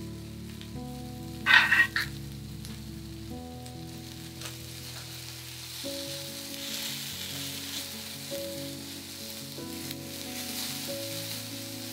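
Sliced onions sizzling as they fry in a stainless steel pan, stirred with a silicone spatula. There is a brief louder burst about a second and a half in. Soft background music plays underneath.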